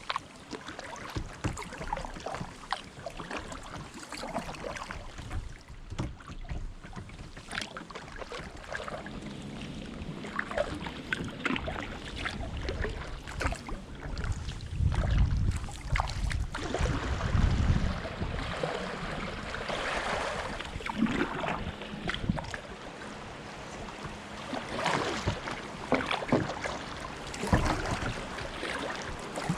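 Kayak paddling: the paddle blades dip, splash and drip, with scattered knocks and clicks against the kayak, and a louder low rumble near the middle.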